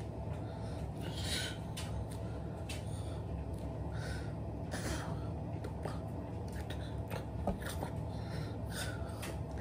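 A steady low hum, with a person's short breathy exhalations through the nose and mouth every second or two and a few soft clicks.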